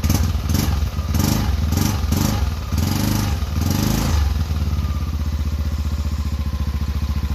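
Yamaha NMAX version 2 scooter's single-cylinder engine through a JVT aftermarket exhaust, blipped about six times in quick throttle revs over the first four seconds, then settling back to a steady idle.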